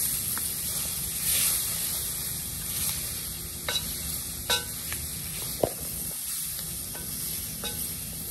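Diced onions sizzling in a hot roux in a cast iron Dutch oven while a wooden spoon stirs them. The sizzle swells about a second in, and a few short sharp knocks come through now and then.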